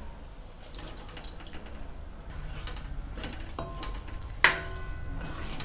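Boiled chicken pieces being tipped into a metal kadhai of thick masala paste and stirred with a plastic spatula: soft scraping and squelching, with one sharp metal clank about four and a half seconds in that rings briefly.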